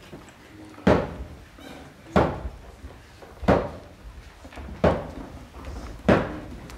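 A steady beat of loud thuds, five of them about 1.3 seconds apart, each dying away quickly.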